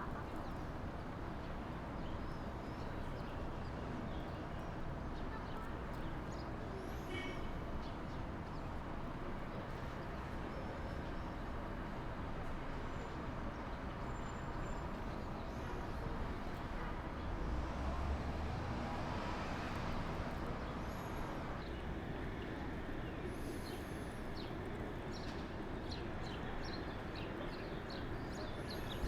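Steady city street ambience: a constant hum of traffic with faint voices, a low rumble swelling about two-thirds of the way through, and short high chirps near the end.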